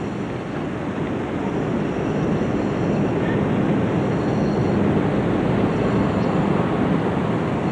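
Steady industrial noise of blast-furnace plant: an even rushing noise with a faint low hum, slowly getting a little louder.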